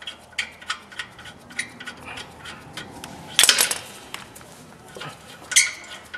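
A wrench working the top bolt of a rear brake caliper loose: a run of light metallic clicks and clinks of tool on bolt, with a louder metal clatter about three and a half seconds in and another sharp clink near the end.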